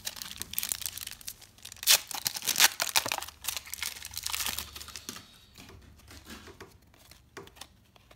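Shiny foil wrapper of a 1993–94 Upper Deck basketball card pack being torn open and crinkled: a dense crackle, loudest about two seconds in. After about five seconds it dies down to a few soft rustles and clicks of cards being handled.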